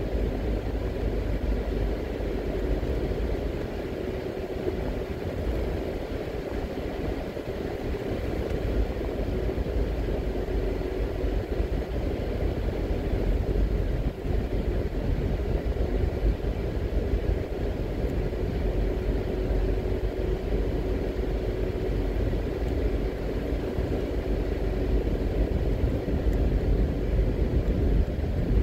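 Car driving on a city road: a steady low rumble of engine and tyres on the road surface, with a faint hum running through it.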